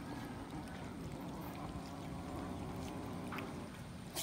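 A group of cats chewing and lapping raw minced chicken: steady wet smacking and chomping with a few small clicks.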